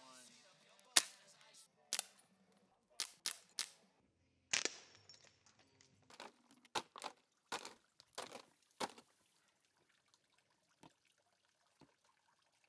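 A series of about a dozen sharp cracks, irregularly spaced over some eight seconds, the first about a second in the loudest.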